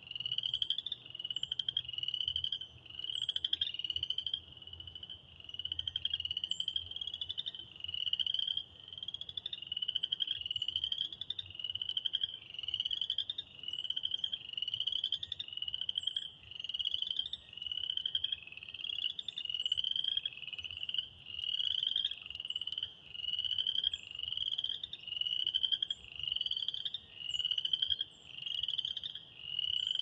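A chorus of frogs calling: high-pitched, rapidly pulsed calls that rise slightly in pitch, repeated about once a second without a break.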